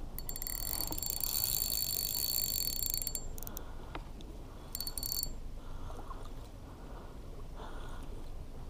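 Spinning reel's drag buzzing as a hooked fish pulls line off, once for about three seconds and again briefly a couple of seconds later.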